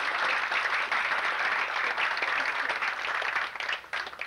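Audience applauding. The clapping thins out into scattered single claps after about three seconds and dies away near the end.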